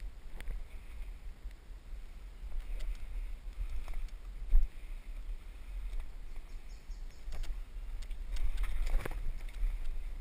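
Footsteps and rustling through leaf litter and undergrowth, with irregular knocks and clicks from carried gear and a steady low rumble of wind and handling on the body-worn camera's microphone.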